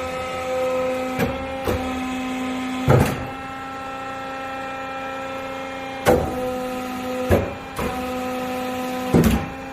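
Kitamachi Kikai one-way compression metal press running, its 7.5 kW motor giving a steady hum. Sharp clunks come at uneven intervals, about seven in all, as the press works.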